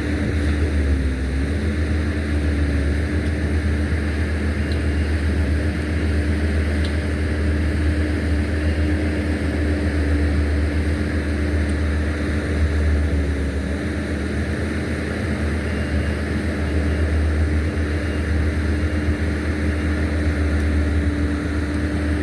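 A vehicle running steadily, a continuous low rumble with a steady engine hum that sags slightly in pitch a couple of times.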